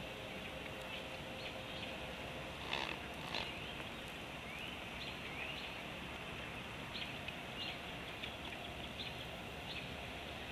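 Outdoor bird sounds: many short high chirps repeating over a steady background hiss, with two brief louder calls close together about three seconds in.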